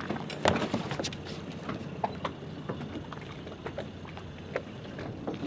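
Scattered knocks and clunks as the inflatable dinghy is brought alongside and its line is handled, over a low, steady motor hum. The loudest knock comes about half a second in.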